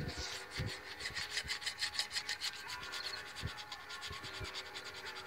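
Razor blade scraping the cast-iron deck surface of a Chevy 3.1 litre V6 block in quick, repeated strokes, taking old head-gasket material, carbon and rust spots down to bare metal.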